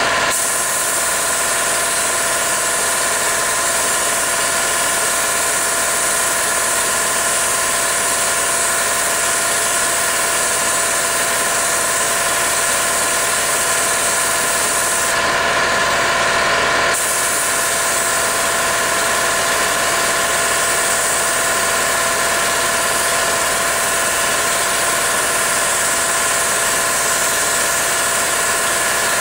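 Paint spray gun hissing as it sprays, over the steady running hum of the air compressor feeding it. The spray hiss cuts out briefly about fifteen seconds in, then resumes.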